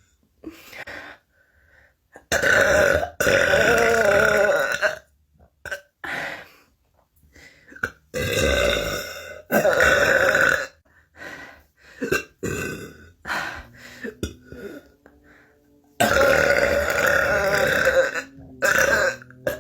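A person burping, a run of several long, drawn-out burps lasting one to two seconds each, with shorter burps and brief pauses between them.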